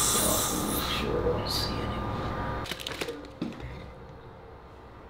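A dental instrument hisses at the patient's mouth over a steady low hum for about the first second, with a shorter hiss a moment later. About three seconds in come a few light clicks as plastic blood tubes are handled in a centrifuge rotor.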